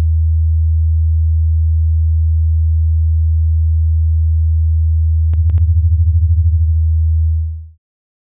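A steady, low electronic sine-tone drone. A few sharp clicks come about five and a half seconds in, then a rapid pulsing wobble for a second or so, before the tone fades out near the end.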